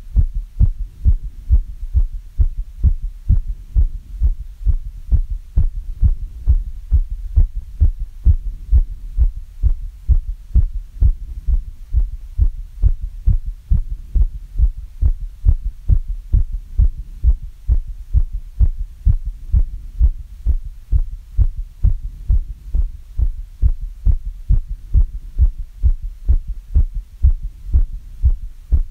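A person's heartbeat recovering after exercise: a steady, even run of low thumps.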